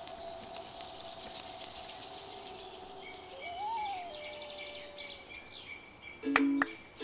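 Outdoor ambience of many small birds chirping, over a faint steady hum that briefly wavers upward about midway. Near the end a few sharp, plucked-sounding music notes come in.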